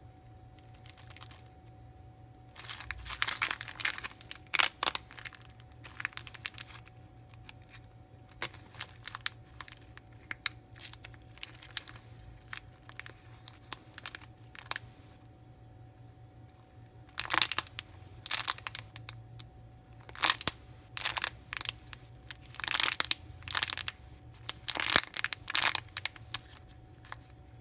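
Thin plastic packaging crinkling and rustling as it is handled, in two bouts of crackling with quieter stretches between.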